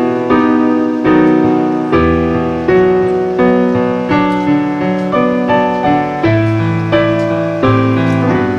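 Background piano music: notes struck one after another at a gentle, even pace, each fading before the next.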